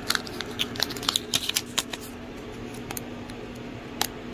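Folded paper sticky notes crinkling and clicking as they are handled and drawn from a glass jar: a quick cluster of crisp crackles over the first two seconds, then a few single clicks. A faint steady hum runs beneath.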